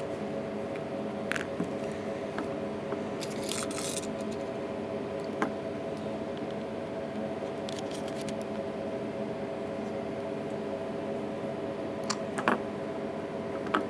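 Small clicks and brief scrapes from handling a phone and small tools, with a louder pair of clicks near the end, over a steady electrical hum.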